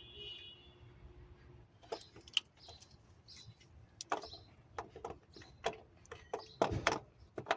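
Irregular sharp clicks and knocks, starting about two seconds in and coming every fraction of a second, the loudest near the end: hand tools and metal parts being handled while the starter is reinstalled.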